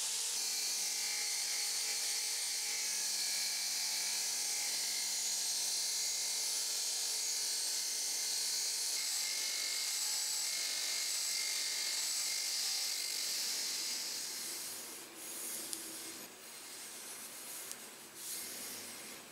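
Bench grinder's wire-brush wheel spinning at speed and scouring a steel tin-snips blade: a steady, hissing scrape over a faint motor hum. It stops about fifteen seconds in, giving way to softer rubbing and a few clicks as the gloved hands handle the snips.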